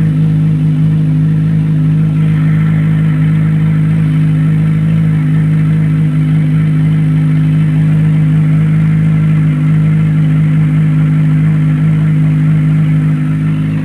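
Kawasaki Ninja 1000SX's inline-four engine idling steadily with the stock exhaust canister removed, on a cold start and still warming up.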